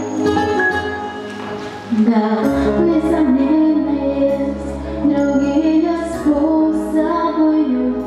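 A young woman's solo voice singing into a microphone over a plucked-string backing track. The instrumental intro plays alone for about two seconds, then the voice comes in and carries the melody.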